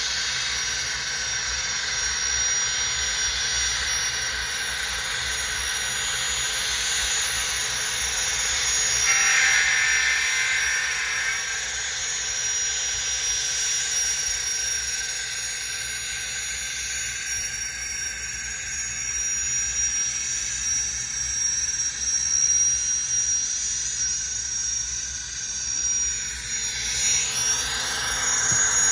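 Onboard sound of an N scale Union Pacific gas turbine locomotive model: a steady jet-like turbine whine and hiss from its small speaker as the train runs. The sound is briefly louder about nine seconds in and sweeps in pitch near the end as the locomotive passes close.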